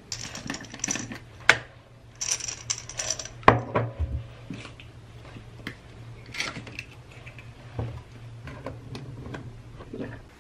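Irregular knocks and clinks of small hard objects being handled, the loudest about one and a half and three and a half seconds in, over a steady low hum.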